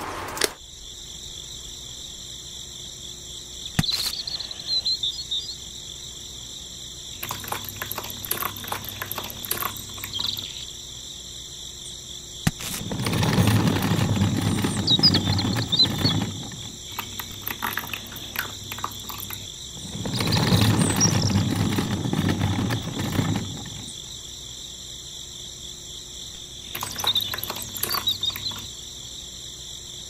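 Steady high chirring of crickets throughout, with scattered small clicks and rattles of handling. Twice near the middle there is a louder rushing noise lasting a few seconds.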